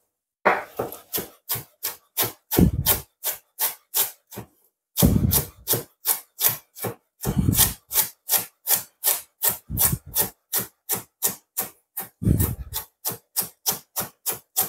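Chef's knife slicing cabbage into thin strips on a wooden cutting board: a steady run of chops, about three a second, each stroke knocking the blade on the board, with a few heavier thumps among them.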